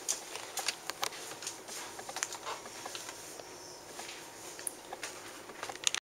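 A string of light, irregular clicks and knocks of things being handled and set down.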